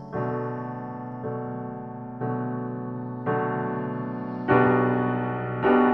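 Piano playing slow sustained chords, a new chord struck about once a second and each one fading away, the chords growing louder toward the end.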